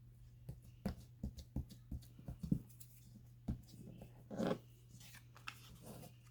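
Hands handling craft materials on a work surface: a string of light taps and clicks, then a short rustle about four and a half seconds in.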